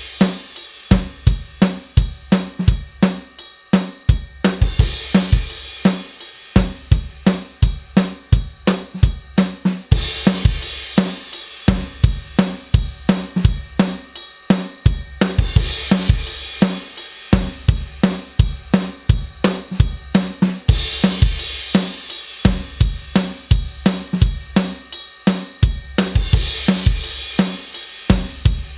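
A recorded acoustic drum-kit groove (kick, snare, hi-hat and cymbals) played back as a loop, with a bright cymbal wash returning about every five and a half seconds. It is the same drum track played clean and then through different compressors, each reducing about 3 to 4 dB.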